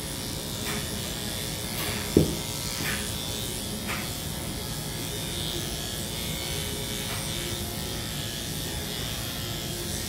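Electric dog-grooming clippers running steadily through a coat, with one sharp knock about two seconds in.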